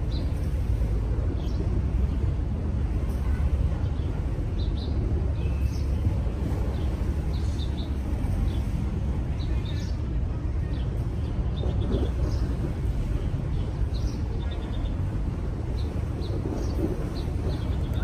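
Steady low outdoor rumble, with short high chirps from small birds scattered throughout.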